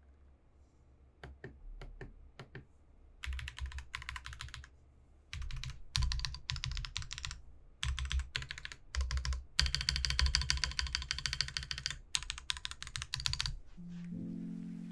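Typing on an Akko Cinnamoroll 5075B Plus mechanical keyboard with Akko CS Creamy Yellow linear switches. A few single keystrokes come first, then bursts of fast typing, the densest near the middle.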